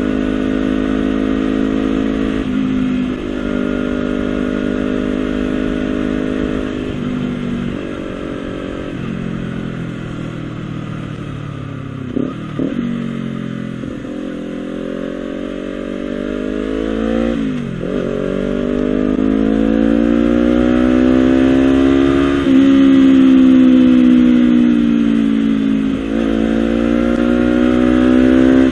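Honda CBR250RR parallel-twin engine running through a Villan SV1 slip-on exhaust, its revs climbing and falling slowly over several seconds at a time, with three quick breaks in pitch along the way.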